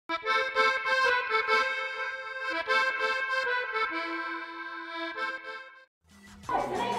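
Background music: a melody of held notes that breaks off just before six seconds, followed about half a second later by a second piece with a steady, repeating bass beat.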